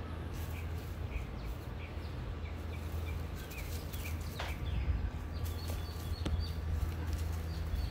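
Dry leaves crackling and rustling as a German Shepherd puppy noses and steps through them, while small birds chirp repeatedly in short high calls. A steady low hum runs underneath.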